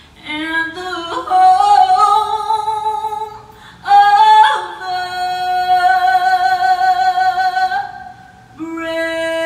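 A woman singing solo in slow phrases of long held notes with vibrato, with brief pauses between phrases.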